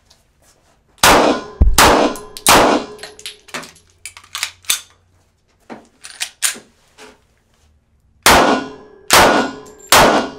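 Six handgun shots in two volleys of three: 9mm rounds, less than a second apart, about a second in, then .45 ACP full metal jacket rounds near the end. Lighter clinks and knocks fall between the volleys.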